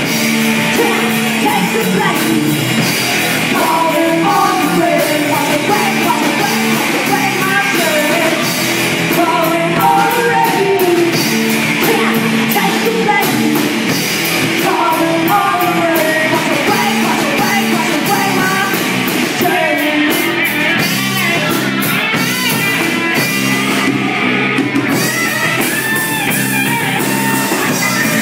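Live rock band playing: a woman singing over electric bass, electric lead guitar and a drum kit, loud and unbroken.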